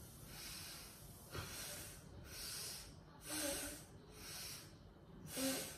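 A woman breathing hard through a leg-lift exercise: about six hissing breaths about a second apart, breathing out as each straight leg goes up. The last breath is the loudest.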